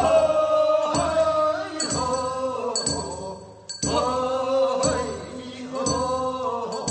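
Korean funeral bier song (sangyeo-sori) from Gyeongsang province, sung in a chant-like folk style. A sharp, ringing strike, like a handbell, keeps time about once a second.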